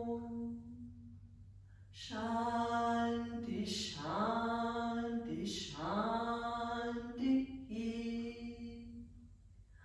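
A woman's solo voice chanting a mantra in long held notes. One phrase fades out at the start, and a new one begins about two seconds in, moving through a few syllables with short pitch glides and holding its note until near the end.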